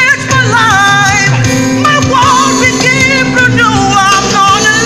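Live gospel singing with keyboard accompaniment: a lead voice slides through high, wavering runs over steady held keyboard notes.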